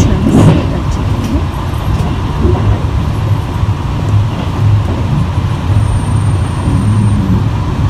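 Steady low rumble of a Limited Express Inaho train (JR East E653 series electric train) running at speed, heard from inside the passenger car.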